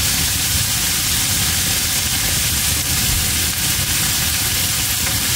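Salmon frying in a pan, giving a steady hissing sizzle.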